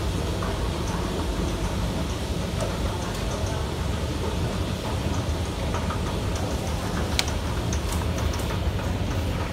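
Metro-station escalator running with a steady low rumble and hiss, and a few sharp clicks near the end as the ride reaches the bottom landing.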